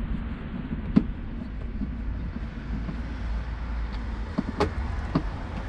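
Handling a gas-bottle securing strap and its buckle against a wall bracket: a sharp click about a second in and a few more clicks near the end. A low steady rumble runs underneath.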